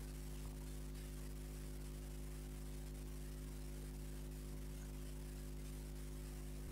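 Steady electrical hum, a low buzz with several overtones, under an even hiss; it holds unchanged throughout with no other sounds.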